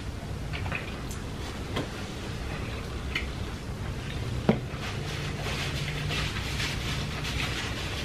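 Close-miked eating sounds: a few small clicks and taps of food being handled, then from about five seconds in steady fine crackly chewing, over a low hum.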